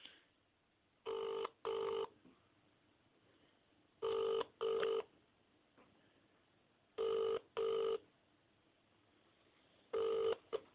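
Telephone ringback tone heard down the line by the caller: a double ring (brr-brr) repeated four times, the last ring cut short as the call is answered.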